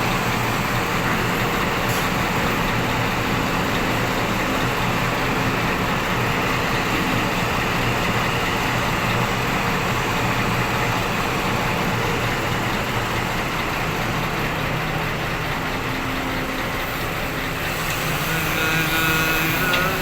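Heavy dump truck's diesel engine running steadily.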